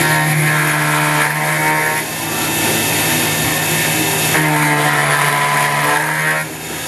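Small CNC mini mill machining 6061 aluminum with a half-inch two-flute high-speed-steel end mill spinning at 5,000 RPM. A higher whine from the cutting and feed rises twice, for about two seconds each time, over the steady spindle hum.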